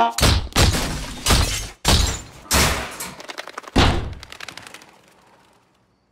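Cartoon sound effects of a violent scuffle: a quick run of crashes, thuds and smashing, about six heavy hits in the first four seconds. The last hit rings out and fades away.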